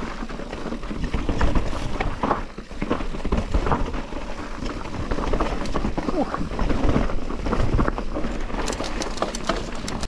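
Mountain bike riding fast down a rough dirt trail: tyres and frame clattering and rattling over rocks with constant quick knocks, and wind buffeting the microphone.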